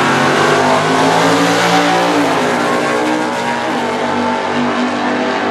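Two drag-racing cars, one the HB Holden Torana, launching off the line and accelerating hard down the strip, their engines' pitch climbing and dropping back about two seconds in.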